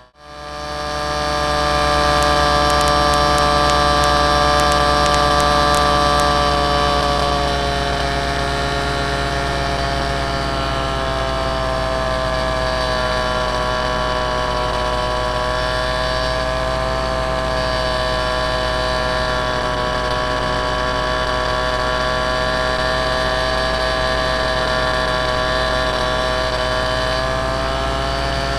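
Model aircraft's motor and propeller heard from on board in flight: a steady, high-pitched hum with several overtones. About seven seconds in it eases slightly lower in level and pitch, as at reduced throttle.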